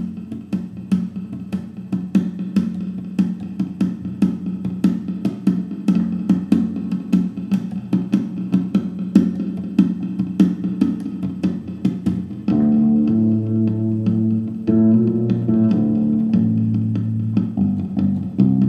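Fender Jazz fretless electric bass playing a gipsy-jazz groove layered on a Boss RC-20 loop station: a fast, even rhythm of sharp strikes on the strings over a low held note. About twelve seconds in, a line of longer sustained bass notes that move in pitch comes in on top.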